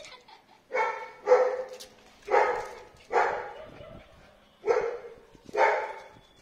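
A dog barking: six short barks spread over about five seconds, starting just under a second in.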